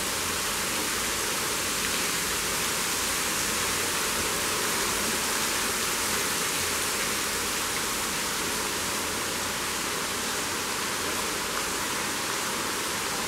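Waterfall pouring into a vertical limestone pit cave: a steady rushing hiss of falling water.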